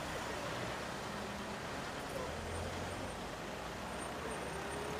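Steady road traffic noise, a low rumble of passing vehicles, swelling briefly about halfway through.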